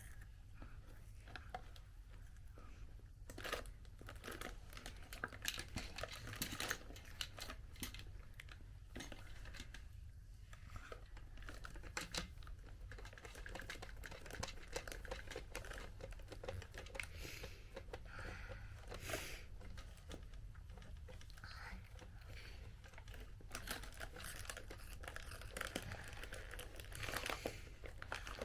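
Irregular small clicks, scrapes and rattles of a screwdriver turning a long screw into the plastic housing of a Dyson V6 vacuum cleaner, with the plastic parts being handled, over a low steady hum.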